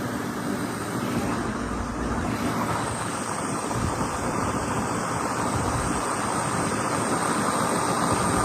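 Sonalika RX 60 tractor's diesel engine running steadily.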